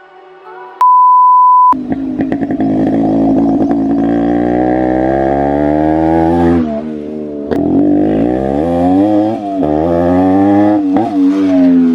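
Yamaha RX135 two-stroke single-cylinder motorcycle engine running and being revved, its exhaust note rising and falling several times. A loud steady beep sounds for about a second just before the engine comes in.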